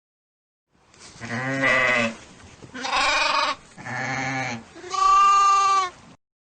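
Sheep bleating four times in a row, each bleat about a second long and wavering in pitch, the last one the loudest.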